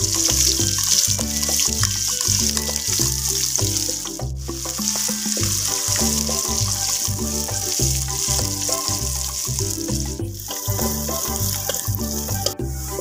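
Background music with a steady bass beat, over a constant high hiss of sliced onions sizzling in hot oil in a metal pot.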